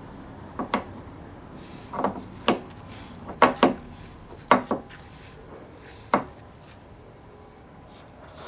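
A series of sharp knocks and clunks, several in quick pairs, as hard objects are handled and set down, over a low steady background.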